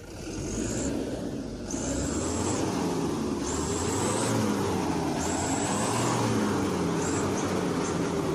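Mitsubishi Fuso Canter turbo-diesel dump truck engine revving under load, its pitch rising and falling several times as the truck, bogged down in mud, strains to drive out. A high whine comes and goes four or five times over it.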